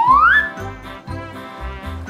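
Background music with a steady beat. It opens on a loud whistle-like sound effect that rises in pitch and cuts off about a third of a second in.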